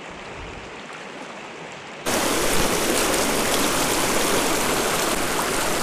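River water rushing over rocks, a steady hiss of current. About two seconds in it jumps abruptly to a much louder, fuller rush of a white-water riffle.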